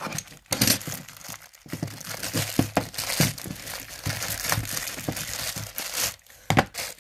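Thin clear plastic bag crinkling and crackling as hands tear it open and pull out a small boxed item, an irregular run of rustles with a sharper crackle near the end.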